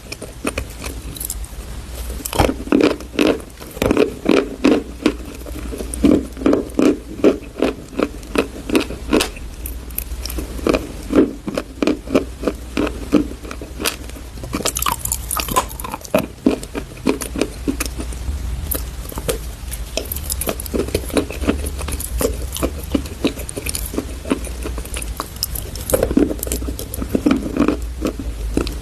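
Dried chalk paste being crunched, with quick runs of sharp crackling and scraping clicks that come in bursts over a faint steady low hum.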